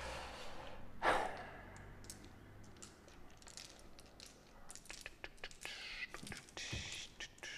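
Light clicks and taps of cardboard board-game tiles being picked up and handled on a table, with a breathy sigh about a second in.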